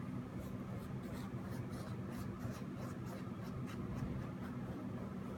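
Paintbrush stroking across the painting surface in quick, short scratchy strokes, about two or three a second, over a steady low hum.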